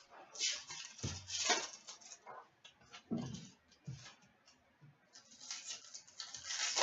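Trading cards and their cardboard and foil packaging being handled: two stretches of rustling and scraping, with light taps and thuds in between.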